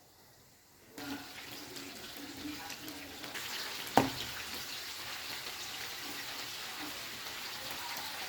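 Chickpea-batter-coated chicken pakoras deep-frying, the hot oil sizzling steadily from about a second in, with one sharp clack of a utensil against the pan about four seconds in.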